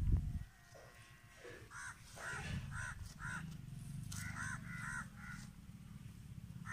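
Crows cawing repeatedly, short harsh calls coming in several quick runs, over a low steady hum.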